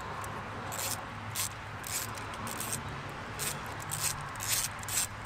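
Hand wrench backing out a stuck, carbon-packed glow plug from the cylinder head of a Ford 7.3 L IDI diesel: a series of short, irregular scraping sounds over a steady low hum.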